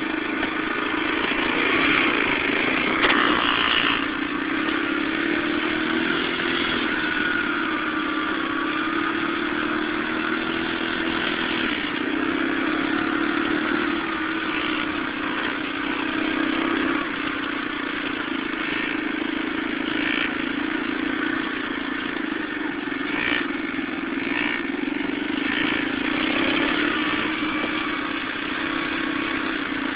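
Dirt bike engine running steadily at low speed, its pitch rising and falling a little with the throttle, with an occasional clatter.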